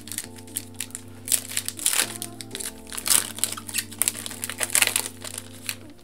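Foil Pokémon booster pack wrapper crinkling with irregular sharp crackles as it is torn open and the cards are pulled out, over background music with a steady bass line.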